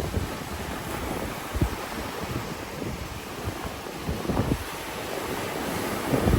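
Sea waves washing on a beach, with wind buffeting the microphone in gusts that make low rumbles, the strongest about a second and a half in, about four seconds in and near the end.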